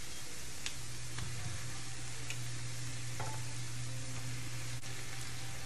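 Hilsa fish pieces sizzling in hot oil with fried onions and spice paste: a steady frying hiss with a few faint ticks. A low steady hum comes in about a second in.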